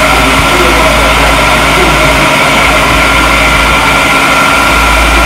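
A loud, steady mechanical drone: a deep rumble under a constant high whine and hiss, unchanging throughout, typical of a motor-driven fan or blower running.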